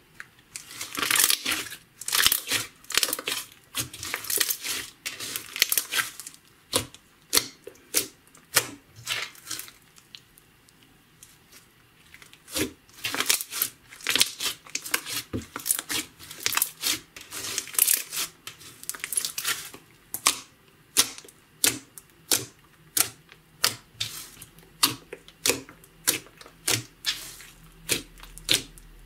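Slime worked by hand, pressed, squeezed and stretched, giving wet crackling clicks and pops. It starts with dense crackly bursts and pauses briefly about ten seconds in. From about twenty seconds in the pops come evenly, a little over one a second.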